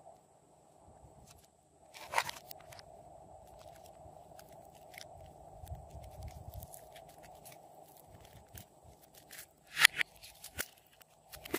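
Hands handling a plastic palette of soft pink makeup clay and peeling and squeezing the clay out of it: scattered sharp plastic clicks and crackles. The loudest clicks come about two seconds in and near the ten-second mark.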